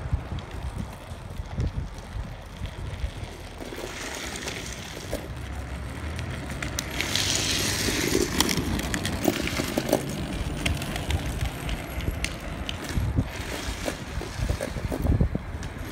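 Homemade drift trike rolling on asphalt, a steady rumble of its wheels with wind on the microphone. About halfway through, a louder scraping hiss comes as its sleeved rear wheels slide past close by.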